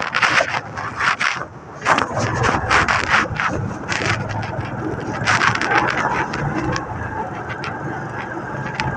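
Honda motorbike being ridden along a road: engine and road noise run on under a rushing sound on the microphone. A run of short scraping knocks breaks through in the first few seconds, and again briefly past the middle.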